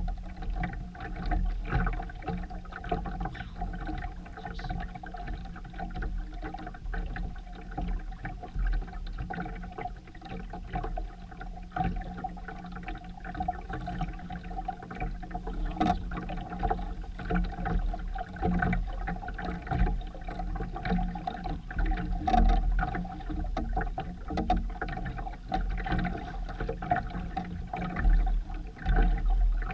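Boat under way: water washing along the hull and wind buffeting the microphone, with a steady drone underneath.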